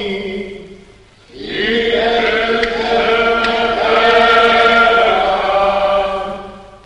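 A choir of voices chanting in unison in long held notes, in the manner of liturgical plainchant. The chant pauses about a second in, resumes, and fades away near the end.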